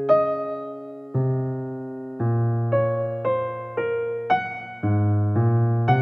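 Background piano music: notes and chords struck one after another, roughly every half second to second, each dying away before the next.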